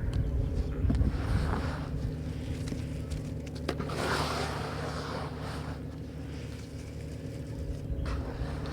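Earthy clay bricks crumbling in water, with soft crackling and fizzing in two spells, one about a second in and a longer one around four to five seconds, a few small clicks between them, over a steady low rumble.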